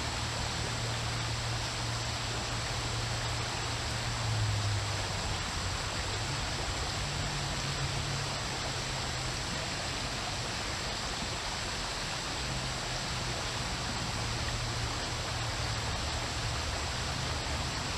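Creek water running steadily over rocks, an even rushing hiss with a low steady hum beneath it.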